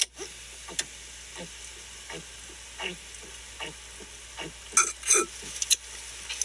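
A person gulping down an energy drink shotgunned from a can: a steady run of swallows, about one every two-thirds of a second, with the liquid fizzing and gurgling. The gulps grow louder near the end.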